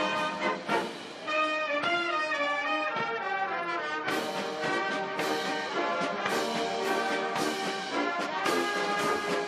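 Brass band music: a melody carried by brass instruments at a steady level.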